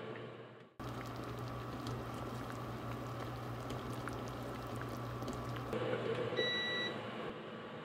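Oden broth simmering in an open clay donabe pot: soft bubbling with many small pops over a low steady hum. About six seconds in, a single short beep as a button on the cooktop's control panel is pressed.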